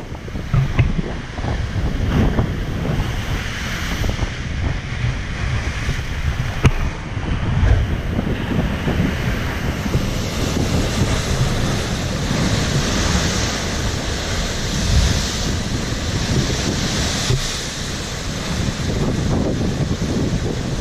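Heavy ocean surf crashing and washing against a rocky shoreline, with strong wind buffeting the microphone throughout. A single sharp crack cuts through about a third of the way in.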